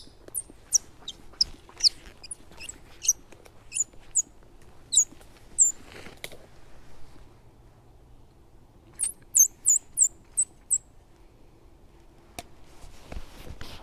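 Squirrel-style chatter: a run of short, sharp, high-pitched squeaks, each dropping slightly in pitch, about a dozen in the first six seconds, then a pause and a quick burst of five or six more. A faint knock and rustle come near the end.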